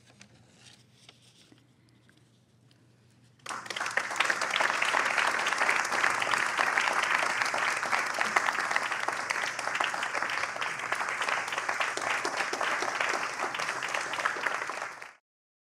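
A few seconds of quiet room tone, then an audience bursts into loud, sustained applause that cuts off suddenly near the end.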